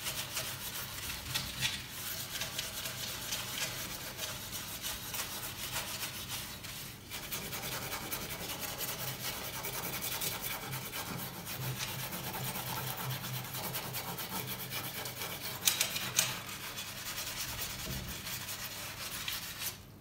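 Steel-wool dish scrubber scouring thick deposits off the glass door of a cast-iron wood stove: continuous scratchy scrubbing, with a couple of louder scrapes about three-quarters of the way through.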